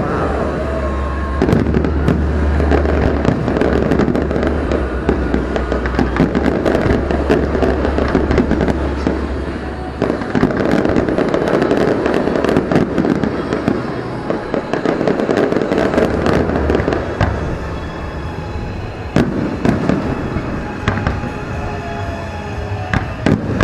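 Aerial fireworks display: shells bursting in quick succession with crackling stars, a near-continuous barrage of bangs.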